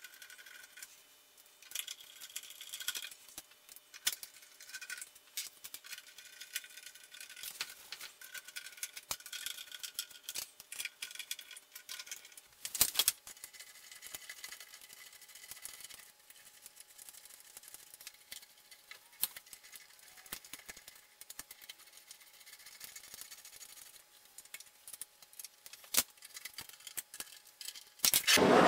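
Small hand screwdriver driving screws into the metal rear panel of an HP 8595E spectrum analyzer's housing: a long run of small, irregular metallic clicks and ticks, with a sharper click about 13 seconds in and a louder clatter near the end.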